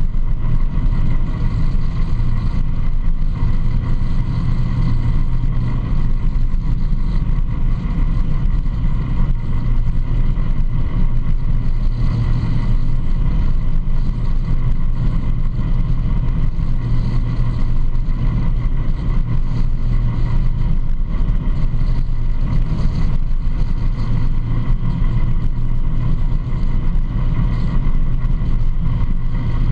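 ATV engine running steadily at cruising speed, with tyre noise on gravel and wind noise over it.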